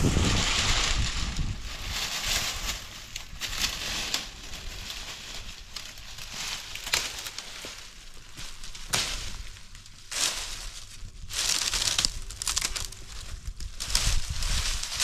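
Dry fallen leaves and dead branches crunching and rustling as they are picked up and dragged by hand, in irregular bursts, loudest at the very start and again near the end.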